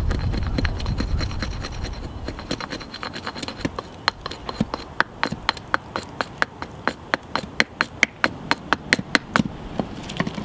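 A small hatchet making quick, light chops into a wooden knife-handle blank, notching the corners: a steady run of sharp wooden taps, about four a second, beginning about two seconds in and growing louder toward the end.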